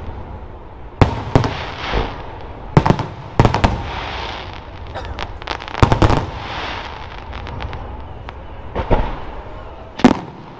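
Aerial firework shells bursting overhead: about ten sharp bangs in irregular clusters, each followed by a fading hiss. The loudest bangs come near 6 seconds in and again just after 10 seconds.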